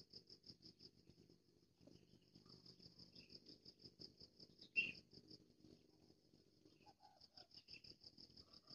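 Insects chirring in a fast pulsing trill, about eight to ten pulses a second, with faint low rustling and one sharp click about halfway through.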